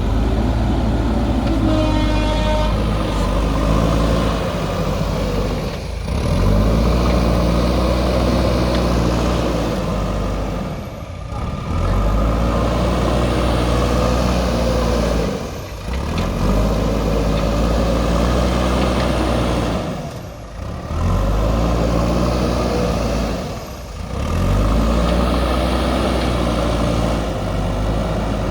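JCB backhoe loader's diesel engine revving up and easing off again and again as the hydraulics dig and load, about every four to five seconds. A brief high tone sounds about two seconds in.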